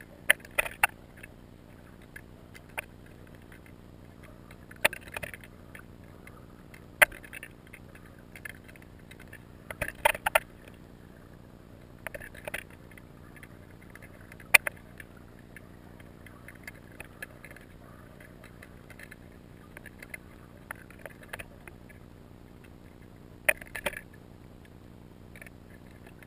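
Muffled underwater sound picked up by a GoPro in its waterproof housing: a steady low hum with sharp clicks and knocks at irregular intervals every few seconds.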